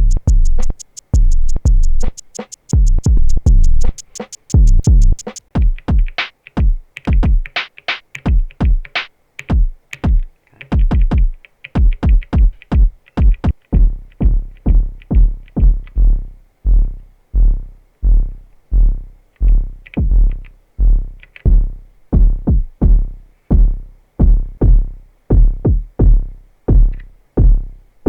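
Electronic beat from an Elektron Digitakt II drum machine and sampler: deep kick drums with rapid hi-hat ticks for the first few seconds. The pattern shifts through the middle and settles into a steady run of deep kicks about twice a second.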